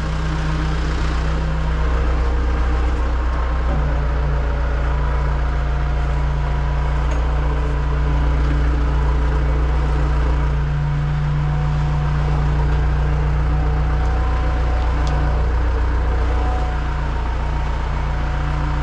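Hino rollback tow truck's diesel engine running steadily, a constant low hum whose pitch and level shift slightly a few times.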